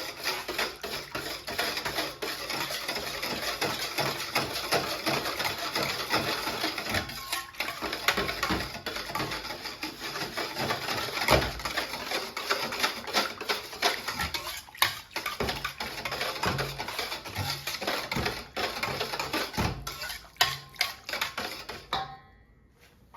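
Soap batter of oil and lye solution being stirred vigorously in a bowl: a steady run of rapid clatters and scrapes that stops about 22 seconds in.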